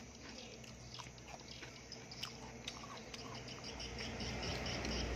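Close chewing and crunching on cucumber, with small crisp clicks. About three and a half seconds in a low rumble rises, and insects start chirping in a rapid, even pulse.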